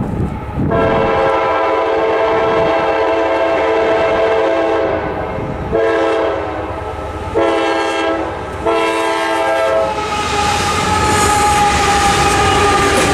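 A GE AC44CW locomotive's horn sounds for the crossing: one long blast, then three shorter ones close together, ending about ten seconds in. Then the locomotive passes close by, with engine noise and wheels clattering on the rails.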